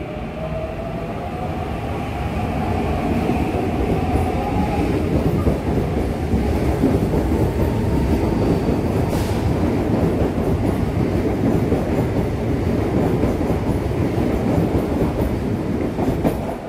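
CPTM electric commuter train passing close along the platform. Its electric traction motors give a whine that rises in pitch over the first few seconds, then the wheels on the rails make a loud steady rumble as the cars go by. The sound drops away near the end.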